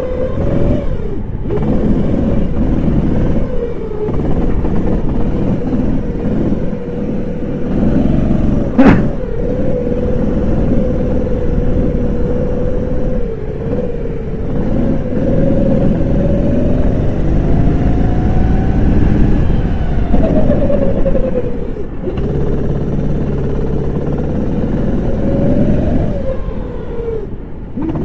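Kart engine running hard while lapping, its note mostly steady, climbing and then dropping off about twenty seconds in, and again near the end, as the throttle is lifted for corners. A single sharp knock about nine seconds in.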